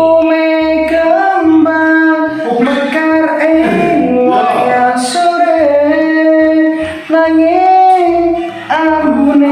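A song: a voice singing a melody of long, held notes that waver and slide between pitches, over a steady low beat.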